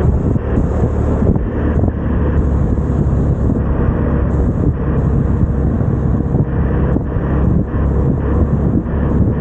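Vespa scooter engine running steadily while riding, with wind buffeting the microphone.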